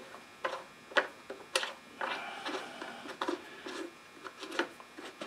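Plastic knobs being turned by hand down onto a lawn mower engine's metal air cleaner cover: irregular small clicks, taps and scraping as they thread on snug.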